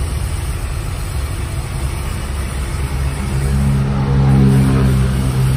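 Tractor engine running at idle with a steady low rumble. About three seconds in, a louder, steady droning tone joins it, then eases off near the end.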